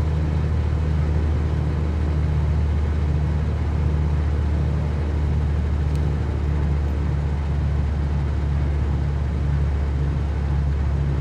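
Cessna 182Q's six-cylinder Continental O-470 engine and propeller droning steadily in flight, heard from inside the cabin.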